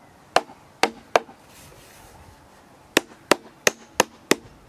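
Hammer tapping the wooden boards of a flat-pack beehive brood box together, knocking the joints closed. Three sharp knocks, a pause of nearly two seconds, then five more at about three a second.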